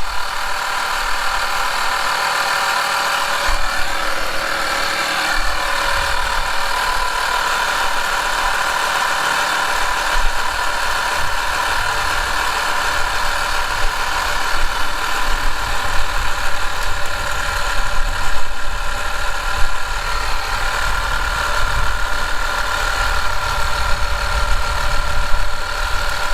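Audew 12-volt portable tire inflator running steadily, its small piston compressor pumping air into a truck tire that is already near 35 PSI to top it up.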